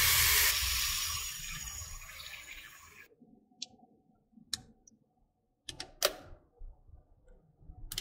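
Hot tap water pouring into a plastic tub of dry spaghetti, fading over the first three seconds and then stopping. After that come a few short, light clicks and splashes as a hand stirs the spaghetti in the water.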